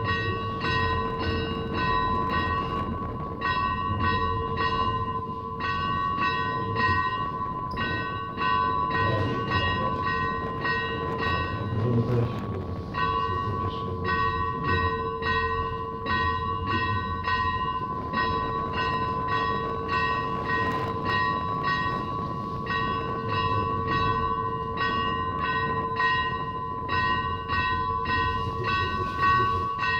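Greek Orthodox church bells ringing a rapid peal, struck about three times a second over a steady hum of ringing, with a brief break in the strikes about twelve seconds in.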